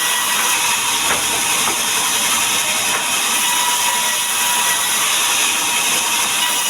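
Power saw running steadily with an even hissing whine.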